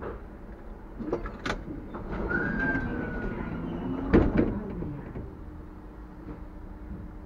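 TW6000 tram standing at a stop: scattered clicks and knocks, with the loudest thud about four seconds in, a short high whistling tone just before it, then a steady low hum from about five seconds on.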